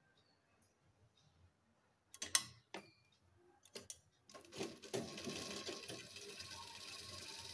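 Sewing machine: a few sharp clicks and knocks, then from about halfway through the machine runs steadily, stitching a seam.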